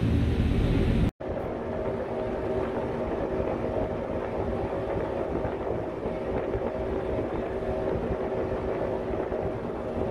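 Boat engine running steadily under wind and water noise. The sound breaks off for an instant about a second in, then carries on as a steady hum with a few low tones.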